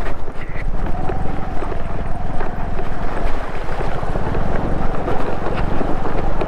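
A two-wheeler engine running at low speed through a shallow, rocky river crossing, with the wheels knocking over stones and water splashing. Wind buffets the helmet microphone.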